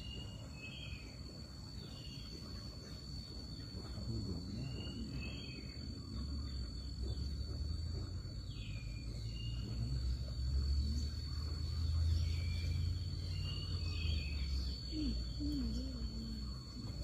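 Outdoor ambience: a steady high-pitched insect drone, with short repeated bird chirps that drop in pitch. A low rumble underneath grows louder through the middle.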